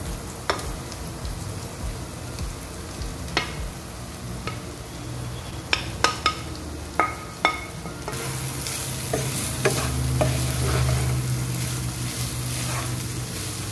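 Wooden spatula scraping and knocking in a nonstick pot as shredded boiled chicken is stirred into frying onion and spices, with a few sharp knocks about six to seven seconds in. The frying sizzle gets louder from about eight seconds in.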